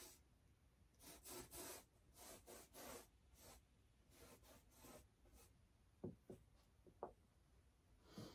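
Faint paintbrush strokes scrubbing across a canvas, a series of short strokes, followed by a few soft small knocks about six to seven seconds in.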